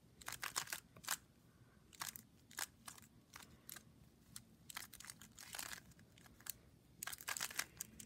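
Faint plastic clicks of a stickerless 3x3 Rubik's cube's layers being turned by hand, coming in short quick runs with pauses between them, as a layer-turning algorithm is carried out.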